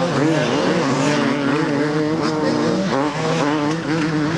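Several two-stroke motocross bikes racing on the track, their engines revving up and down in overlapping tones as the riders work the throttle and shift.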